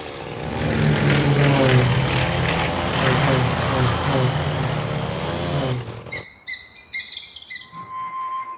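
A loud, wobbling rumble of a cartoon sound effect that stops suddenly about six seconds in. Short, repeated bird-like tweets follow, with a steady whistling tone joining near the end.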